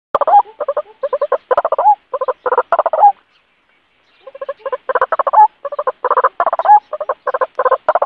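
White-breasted waterhen calling: fast runs of short, repeated harsh notes, stopping for about a second a little after three seconds in, then starting again.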